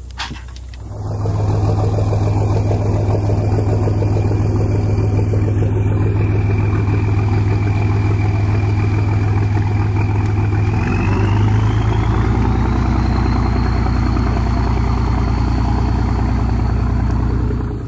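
Boat outboard motor running at speed, with a steady drone and a whine. About eleven seconds in the whine climbs in pitch as the engine speeds up, then holds. The sound starts suddenly about a second in and stops suddenly just before the end.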